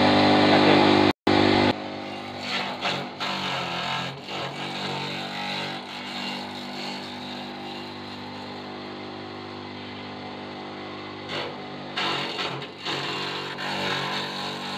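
Small electric grass chopper running with a steady motor hum, with irregular crunching bursts as bundles of leafy stems are fed into its blades. Loud for the first second or two, then quieter.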